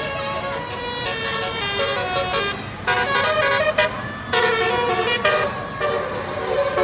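Basuri multi-tone musical bus horn playing a tune in a run of stepped notes, loudest in two long blasts about three and four and a half seconds in.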